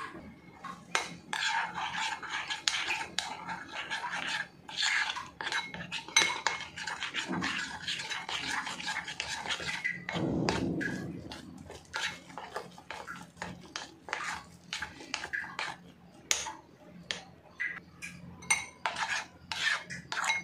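Metal spoon stirring flour and spices into a thick batter in a glass bowl. The spoon scrapes steadily against the glass for about the first half, then gives separate clinks and taps on the bowl.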